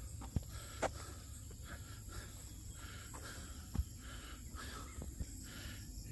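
Faint insect chorus, a steady high-pitched drone, with a few soft thumps near the start and again about four seconds in.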